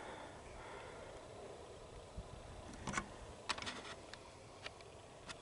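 Faint handling noise: a few light clicks and rustles, most of them around three seconds in, over a quiet low hiss.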